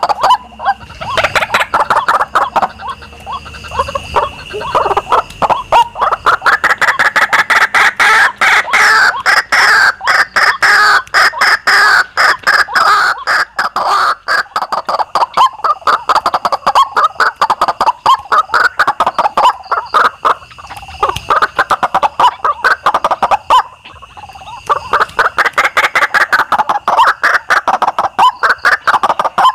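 White-breasted waterhens calling: the ruak-ruak call used as a hunting lure, a dense, rapid run of repeated calls that swells into louder, fuller bouts a couple of times.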